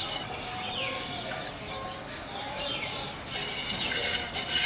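Hand smearing and rubbing wet red clay over the outside of a metal pressure cooker: a repeated scratchy rubbing, stroke after stroke.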